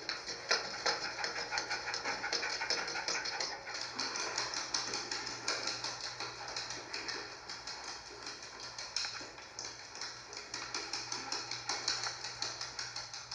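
Rapid, irregular clicking and tapping, several clicks a second, over a steady low hum.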